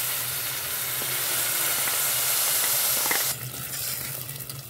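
Milk-soaked semolina hitting hot oil in a steel pot, frying with a loud, even sizzle as the milk's water flashes off in the oil. The sizzle drops abruptly a little over three seconds in and carries on more quietly.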